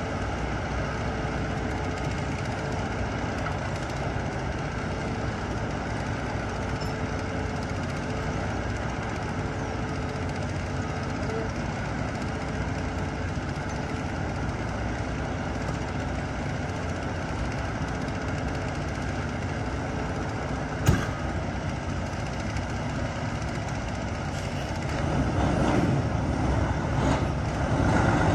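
Diesel locomotive engine running steadily, with a single sharp knock about two-thirds of the way through; the sound grows louder in the last few seconds.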